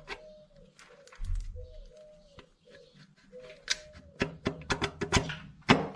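Irregular metallic clicks and knocks from work on a bare engine, coming quickly one after another for the last two seconds, with a dull thud a little over a second in. A pigeon coos softly in the background.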